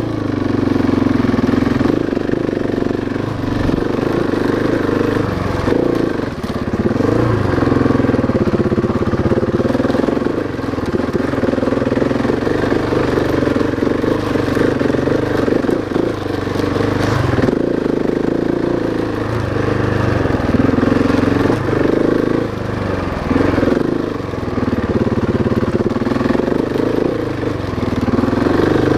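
Husqvarna 701 Enduro's single-cylinder engine pulling the bike up a rough dirt trail, its revs rising and falling again and again as the throttle is worked.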